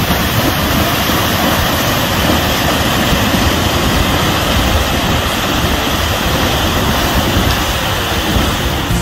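Steady rush of a creek and small waterfall, with a horse splashing through the shallow water.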